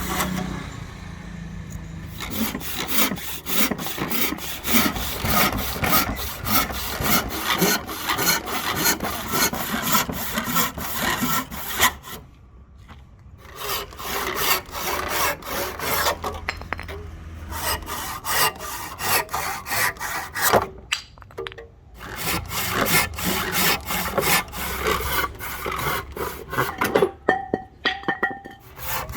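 Hand saw cutting through a rosewood blank in quick, repeated rasping strokes, stopping briefly three times.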